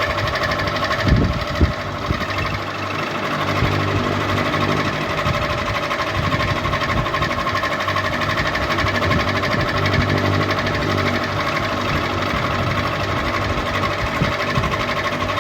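Ceiling fan running with a steady mechanical whirring hum, with two brief knocks a little over a second in.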